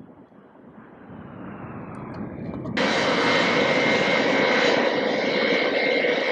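Jet engines of an OC-135B Open Skies aircraft, four TF33 turbofans. A distant rushing noise grows slowly louder, then about three seconds in it jumps abruptly to a loud, close, steady engine whine with high tones as the aircraft taxis in.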